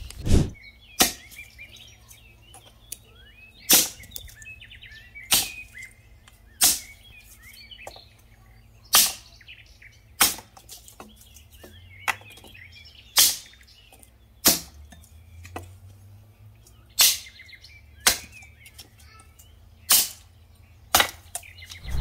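A hatchet chopping a dry log, splitting wood for a samovar fire: a run of sharp, separate blows about one a second with short pauses. Birds chirp faintly between the blows.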